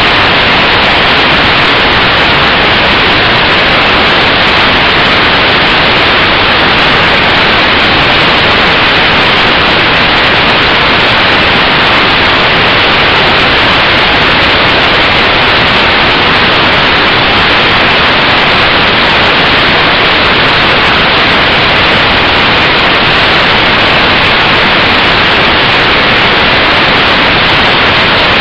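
Loud, steady hiss of static that sets in abruptly and stays completely even, covering any other sound: the noisy audio track of a cheap lighter spy camera.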